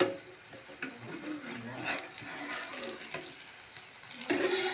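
Malpua frying in hot oil in a pan, sizzling and bubbling, with a ladle scraping and knocking against the pan now and then, most busily near the end.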